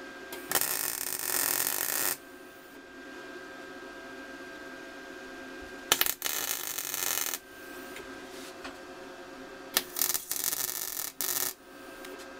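MIG welder laying three short tack welds on steel parts, each arc crackling for about a second and a half, starting and stopping sharply.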